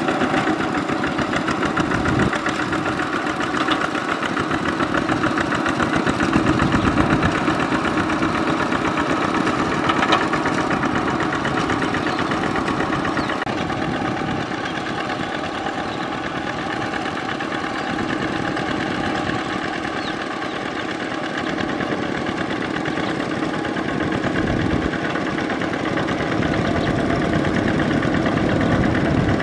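Kubota RT120 single-cylinder diesel engine on a two-wheel walking tractor running steadily with an even chugging beat while its cage wheels work through a flooded rice paddy.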